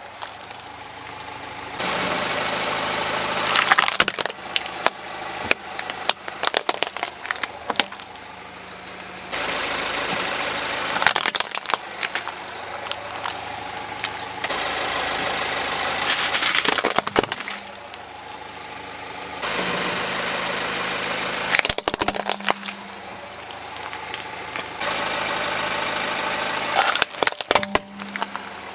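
A car tyre rolls over small plastic toys, crushing them with sharp cracking and snapping, five times in a row. Between the crushes the car's engine runs steadily.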